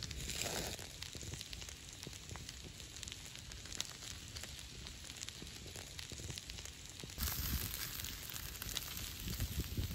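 Wood campfire crackling under a flat cooking stone, with scattered small pops. About seven seconds in, the sound changes to a brighter, steadier hiss.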